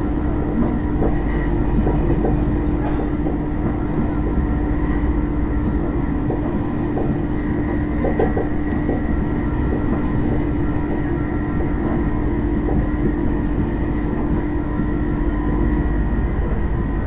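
RER B commuter train running between stations: a steady rumble of wheels on the track with a steady hum from the traction equipment, the odd traction noise the rider is recording. The hum fades out near the end while the rumble carries on.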